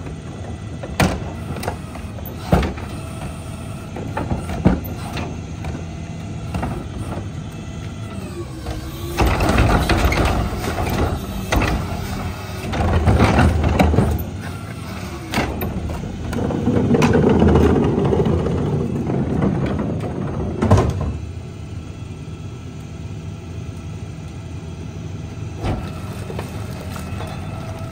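CNG garbage truck engine idling steadily behind a McNeilus rear-loader hopper while wheeled trash carts are tipped into it by hand: scattered bangs of carts against the hopper edge, and two louder spells of trash bags and loose garbage tumbling in near the middle.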